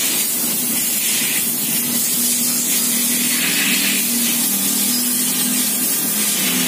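Steady loud hiss, with faint low tones coming and going underneath.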